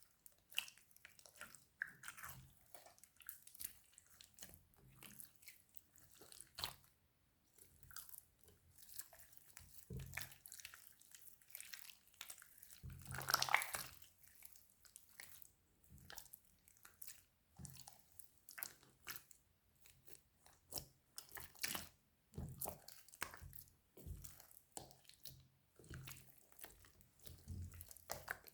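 Slime being squished, stretched and played with: a run of small sticky clicks, crackles and pops, with a longer, louder squelch about thirteen seconds in.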